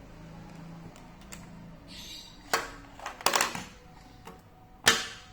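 Sharp clicks and clacks from an airsoft Glock 18C replica pistol with a metal slide being handled: one click about halfway through, a quick rattle of clacks just after, and the loudest clack near the end.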